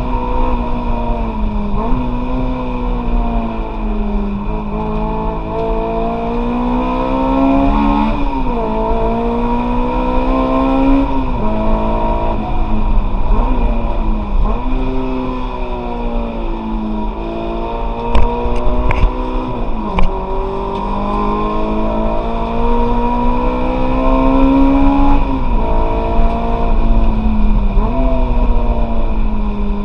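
Honda S2000's four-cylinder engine heard from inside the cabin under hard track driving, rising in pitch as it revs out and dropping sharply at each gear change or braking point, over steady road and wind noise. Two sharp knocks stand out about two-thirds of the way through.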